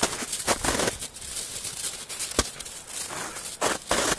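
Footsteps crunching in packed snow, an irregular run of crisp crunches with a few sharper ones.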